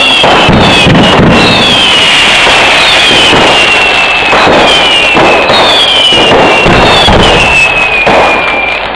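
Fireworks display: a continuous, very loud barrage of bangs and crackle, with whistling shells going off one after another, each whistle falling in pitch.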